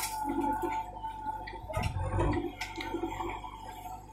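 JCB 3DX backhoe loader working: its diesel engine runs with a steady whine while soil tips from the bucket into a tractor trolley. The engine surges about two seconds in, and a few sharp knocks are heard.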